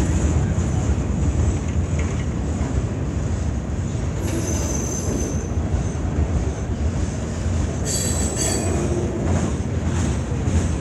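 CN freight train's boxcars rolling past with a steady low rumble. A high-pitched metallic wheel squeal rises twice, about four seconds in and again about eight seconds in.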